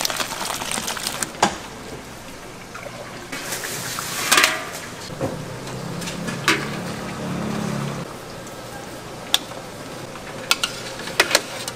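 Stall kitchen work: liquid poured and sloshing in a pot about four seconds in, with several sharp clinks of utensils on pots and pans.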